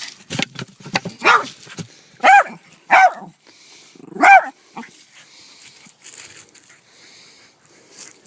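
A dog barking four times, short sharp barks about a second apart, with the last the loudest.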